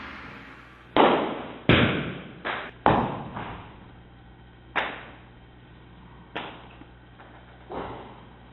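A series of hard knocks and thuds, seven in all at uneven spacing, each ringing out briefly; four come close together early, then three more spaced out.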